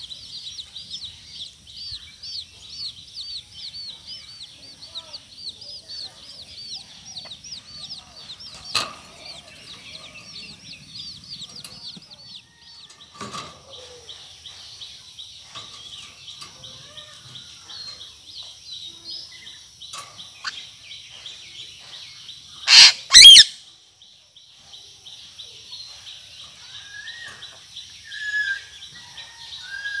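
Two loud, harsh squawks from an Indian ringneck parrot about two-thirds of the way through, over a steady, high, pulsing chirr in the background. A few short clicks and some softer calls come in between.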